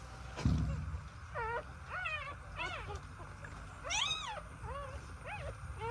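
Short, high cries from a young animal, about seven of them, each rising and then falling in pitch. A low thump comes about half a second in.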